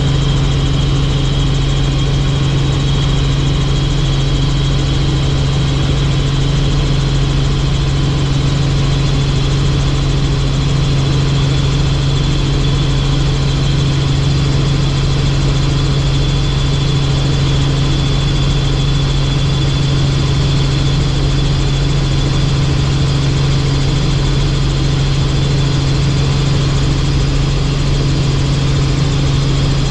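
Helicopter in steady flight: a loud, unchanging drone of rotor and engine, with a thin high whine above it.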